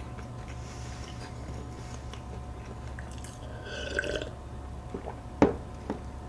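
Milk being swallowed in a couple of gulps from a cup, then the cup set down on the table with a sharp knock, over a steady low hum.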